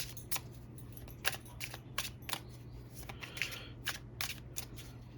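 Tarot cards being shuffled and handled for a clarifier draw: a string of light, irregular card snaps and clicks.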